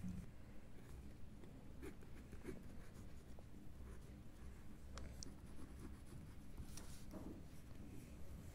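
Pen scratching on ruled notebook paper in short, faint strokes as words and numbers are written.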